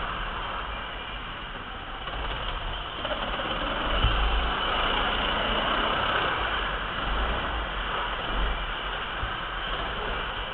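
Onboard sound of an ice kart being driven: a steady rattling mechanical noise from the running kart, with a low knock about four seconds in, after which it is a little louder.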